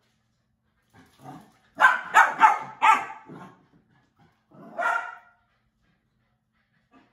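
Bernedoodle puppy barking in a quick run of about four loud barks, then one more bark about five seconds in: excited, playful barking during a bout of zoomies.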